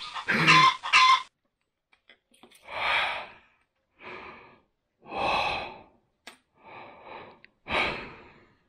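A hen clucking for about the first second, then a person breathing heavily in five separate loud breaths with short silences between.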